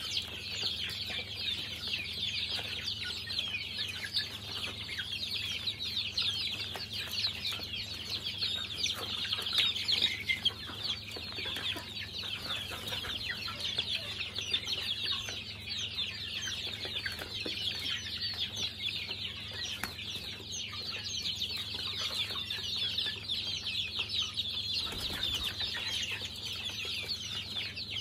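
A flock of young chickens peeping continuously, many short high-pitched calls overlapping into a constant chatter.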